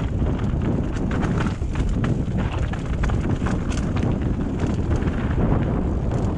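Mountain bike descending a loose, rocky trail: tyres crunching over stones with frequent rattling knocks from the bike over the bumps, under a steady low rumble of wind on the microphone.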